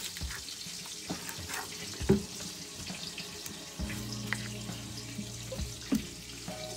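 Butter sizzling in a hot frying pan, with light clicks and taps of metal tongs handling raw chicken breast on a plastic cutting board, the sharpest tap about two seconds in. A steady low hum comes in a little past halfway.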